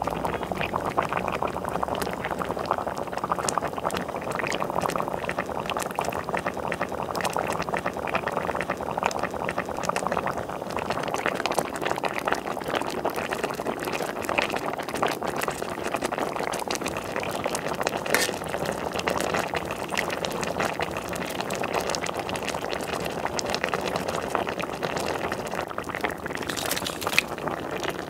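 A pot of spicy red braising broth with radish and onion boiling: a steady, dense bubbling crackle.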